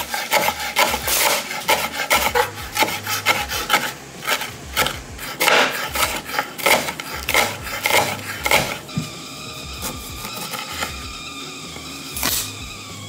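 Chef's knife chopping fresh cilantro on a bamboo cutting board: quick, uneven chops, several a second, that stop about nine seconds in. One more knock comes near the end.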